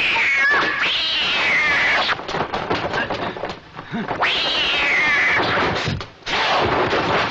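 Cats yowling in a fight: long drawn-out calls that fall in pitch, about a second in and again past the four-second mark, with rough scuffling noise in between.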